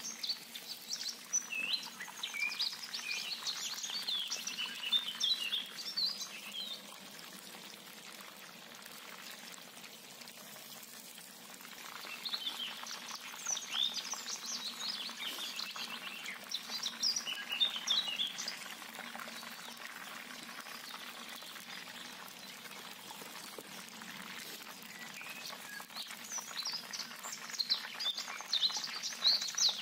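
Chicken wings deep-frying in hot oil in a cast-iron kazan: a steady sizzle with spells of sharp crackling and popping that die down for several seconds about a quarter of the way in, then return.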